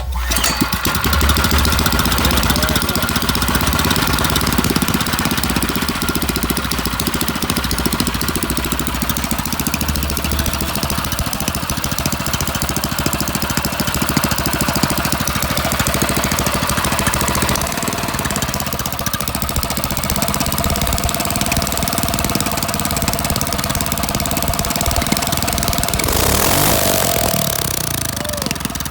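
Small go-kart engine running steadily on its first start after being newly installed. A short louder burst comes near the end.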